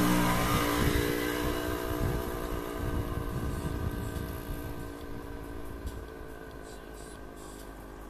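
A motor vehicle engine running at a steady pitch, slowly fading away.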